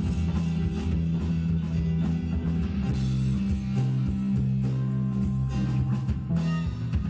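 Live rock band playing an instrumental passage: electric guitar over bass and a drum kit, with a steady beat.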